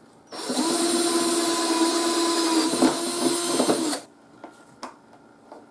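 Power drill with a step drill bit running steadily for nearly four seconds as it bores the next size up through a dirt bike's fender for a wiring hole, then stopping abruptly.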